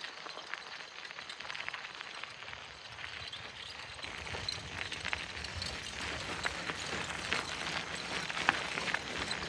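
Small bike being ridden over rough ground: a steady rustle of tyres and moving air with scattered clicks and rattles, getting louder about four seconds in.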